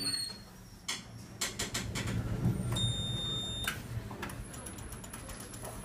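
Hydraulic passenger lift travelling: a steady low hum from the car and its pump, with scattered light clicks and a brief high tone about three seconds in.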